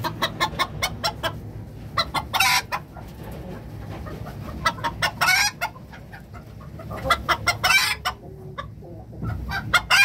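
Minohiki bantam chickens clucking: runs of quick short clucks, each ending in a longer, loud squawk, four times over.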